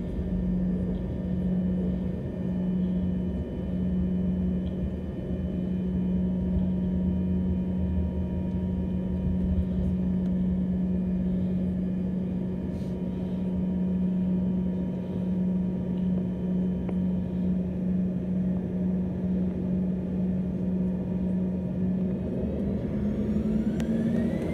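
Cabin sound of an Embraer ERJ-145's rear-mounted Rolls-Royce AE 3007 turbofans running at low power as the jet taxis, a steady hum over rumble. Near the end the engine pitch starts to rise as they spool up for takeoff.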